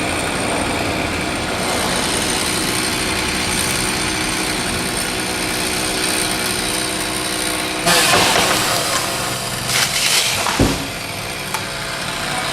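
An engine running steadily, with two loud rushing bursts about eight and ten seconds in.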